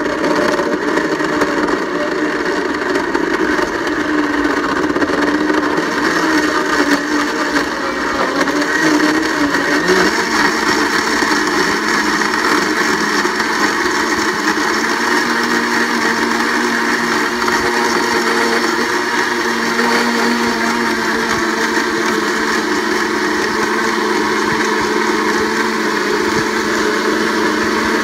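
Blendtec countertop blender running its Smoothie cycle, blending milk, ice cubes and strawberries into a shake. The motor runs loud and steady, its pitch shifting down about ten seconds in.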